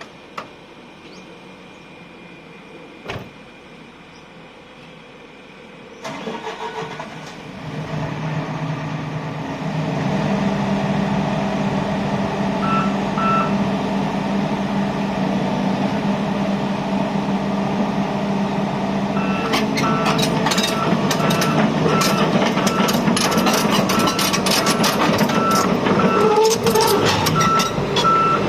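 Volvo excavator's diesel engine starts about six seconds in and comes up to a steady running speed. From about two-thirds of the way through, a warning alarm beeps about once a second over a lot of clattering and clanking from the machine.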